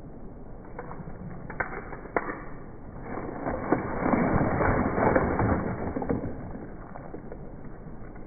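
A few sharp knocks, then several seconds of dense crackling and crunching that swells and fades: something breaking or being crushed apart.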